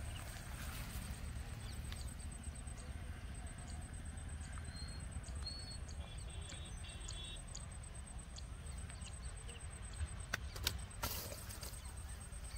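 Outdoor ambience with a steady low rumble and a thin, steady high-pitched buzz. A few faint chirps come in the middle. Near the end there are a few sharp clicks and a brief rustle while a caught tilapia is handled and unhooked.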